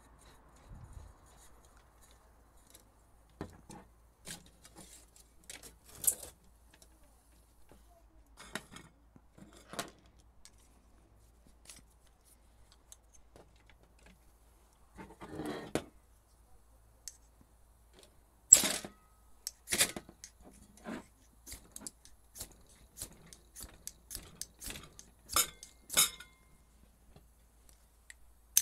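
Scattered small metallic clicks, clinks and knocks of camping-stove fuel fittings being handled: gas-canister adapters screwed together and fitted to the stove's fuel hose. The clicks are sparse at first and come thicker in the second half, with a short rustle about halfway through.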